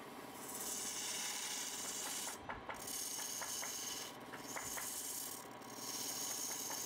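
Abrasive or tool rubbing against wood spinning on a lathe: stretches of hiss one to two seconds long with short gaps between, over a steady motor hum, with scattered clicks in the middle.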